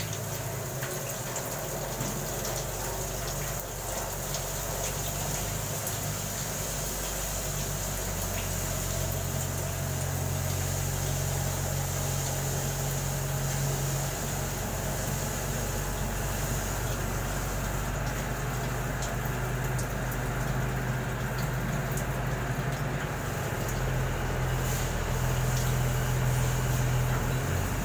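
Steady low mechanical drone of running machinery under an even hiss. The low hum shifts in strength a few times.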